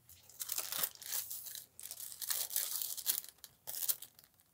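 Tissue paper crinkling and peeling away from the tacky, paint-covered gel plate in several rustling stretches, going quiet near the end.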